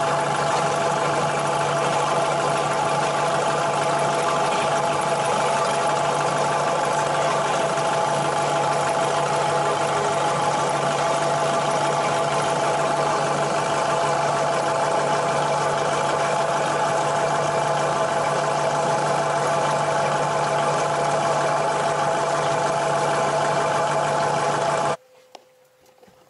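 A yacht's inboard diesel engine idling steadily, run so the crew can check the exhaust system for drips; the muffler turns out to be holed. The sound cuts off abruptly near the end.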